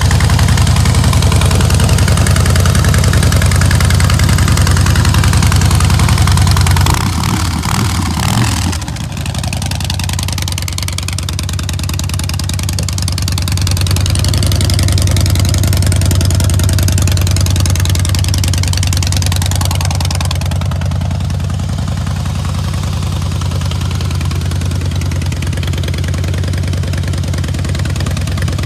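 2007 Harley-Davidson Heritage Softail's 96-cubic-inch V-twin idling steadily. It gets a little quieter about eight seconds in and stays even after that.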